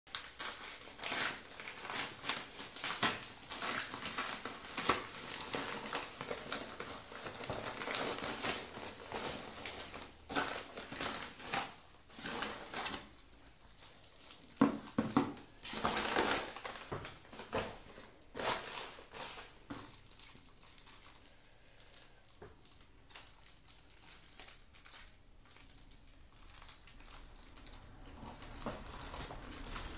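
Kraft-paper padded mailer being crumpled and torn open by hand: irregular crinkling and rustling, busy through the first half and thinning to scattered rustles in the second half.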